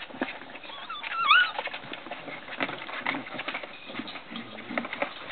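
Airedale terrier puppy giving one short, wavering whine about a second in, over scattered small clicks and rustles from the puppies at play.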